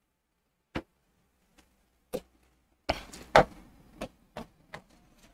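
Irregular taps on an interactive display board's screen, about eight in all, the strongest a little past halfway.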